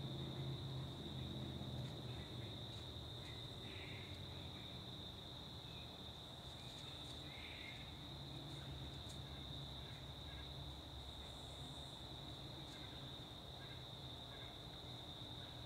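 Crickets trilling steadily in a faint, high, unbroken chorus, over a low background rumble.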